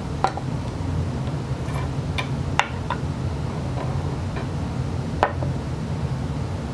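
Triumph Spitfire gearbox gears, bush and washers clinking as they are slid off the mainshaft and set down on the bench: several sharp metallic clicks, the loudest about five seconds in, over a steady low hum.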